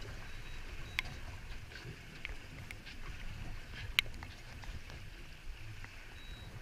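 Choppy sea washing against a small aluminium boat, with a low rumble of wind and water and a few sharp clicks, the loudest about four seconds in.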